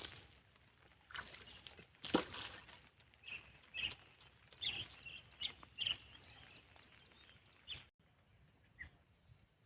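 Faint outdoor ambience with a series of short, high bird-like chirps in the middle.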